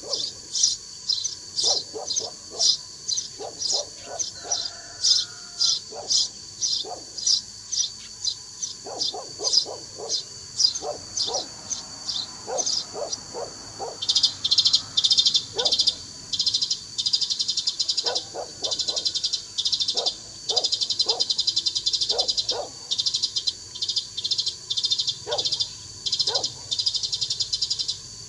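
Sparrow calls played from a bird-lure speaker: high chirps repeating evenly about twice a second, turning into a faster, denser chatter about halfway through. Lower, irregular chirps come in short clusters underneath.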